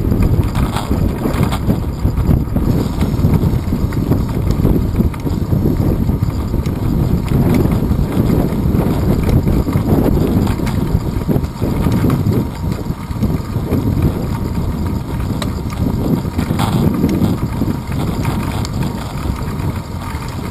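Wind buffeting and road rumble picked up by a handlebar-mounted action camera on a moving bicycle, a steady low rush with small irregular knocks from the bars jolting over the path.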